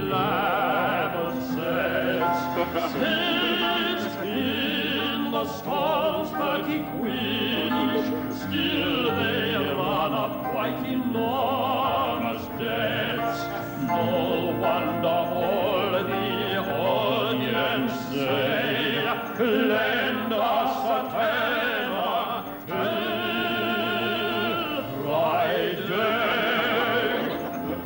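Operatic singing: a man's voice with a strong, wide vibrato over classical musical accompaniment.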